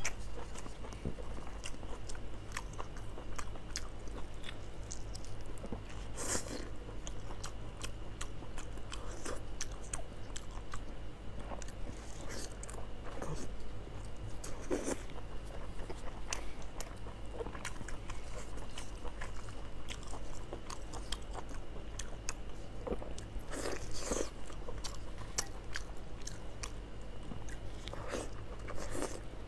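Close-miked chewing and biting of spicy braised tripe-wrapped meat: short wet smacks and clicks of the mouth and teeth, with a few louder bites. A low steady hum runs underneath.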